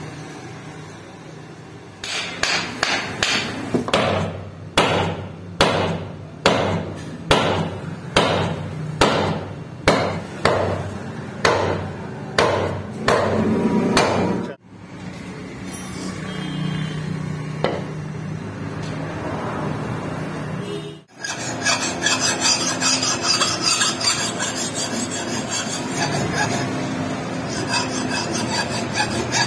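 A series of sharp knocks, about one and a half a second, as the wooden handle is driven into the eye of a steel hatchet head. About two-thirds of the way through, a hand file starts rasping steadily along the hatchet's steel blade edge to sharpen it.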